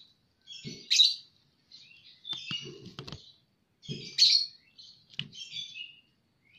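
Birds chirping in four short bursts about a second and a half apart, with a couple of light clicks between them.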